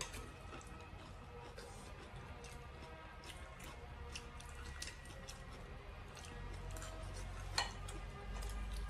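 Quiet eating sounds: chewing and scattered light clicks of chopsticks against porcelain bowls, one sharper click near the end, over faint background music.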